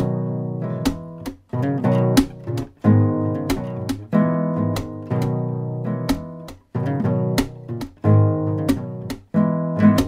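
Background music on acoustic guitar: strummed and plucked chords, each stroke ringing out and fading before the next.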